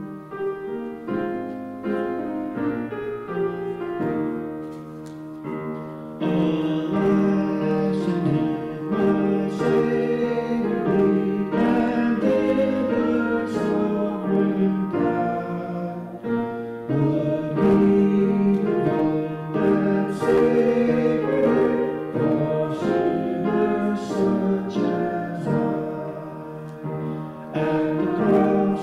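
Piano playing a hymn, with singing that grows fuller about six seconds in.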